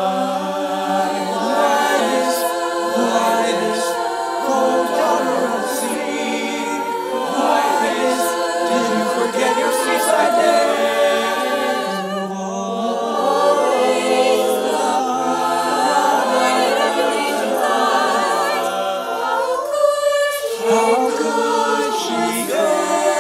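Mixed-voice choir of male and female singers singing a slow a cappella ballad in close harmony, with long held chords and no instruments. The lower voices drop out briefly near the end before the full chord returns.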